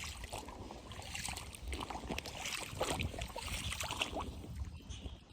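Wind buffeting the microphone, with running creek water and scattered crackles.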